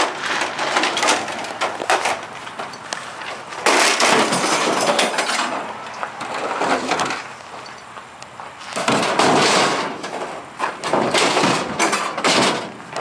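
Scrap metal from a stripped refrigerator clattering and knocking as it is handled and loaded into a pickup truck's bed, in several irregular noisy bursts.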